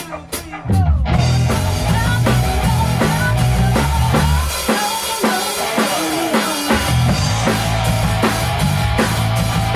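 A rock band rehearsing with drum kit, bass and guitar: a few sharp clicks in the first second, then the full band comes in about a second in. The low end drops out for about two seconds in the middle before the bass and kick come back.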